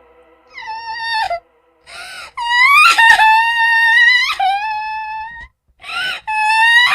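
Crying sound effect: high-pitched wailing cries held on one pitch for a second or two at a time, broken twice by short gasping inhales.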